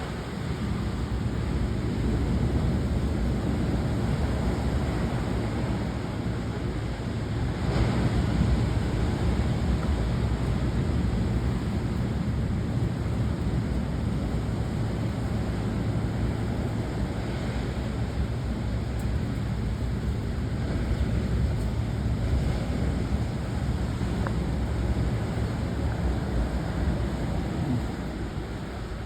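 Heavy storm surf from a hurricane swell breaking continuously on a beach, mixed with strong wind rumbling on the microphone; a little louder about eight seconds in.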